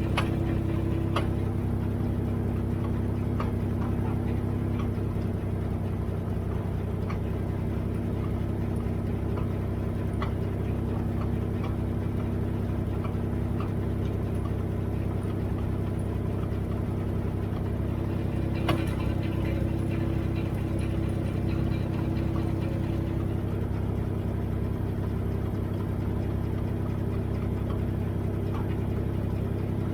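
Dodge vehicle's engine running steadily, with faint irregular clicks and one sharper knock about 19 seconds in: the clunking noise the owner is tracking down.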